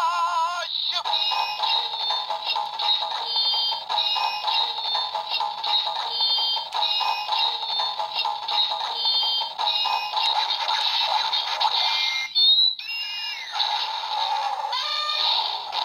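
Zyuoh Buster toy blaster playing electronic music and sound effects through its small built-in speaker. The sound is tinny and continuous, with a short break about twelve and a half seconds in.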